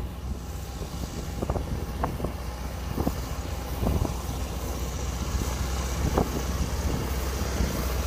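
Kubota DC-60 rice combine harvester's diesel engine and threshing machinery running steadily under load as it cuts rice. The drone holds even, with a few short knocks scattered through it.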